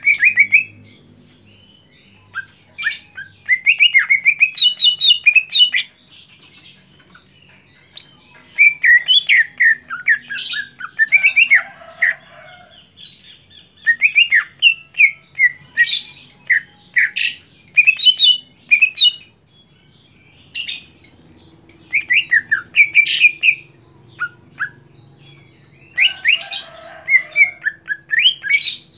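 Male greater green leafbird (cucak hijau) singing in bouts of rapid chirps, trills and whistled notes, with short pauses between the bouts.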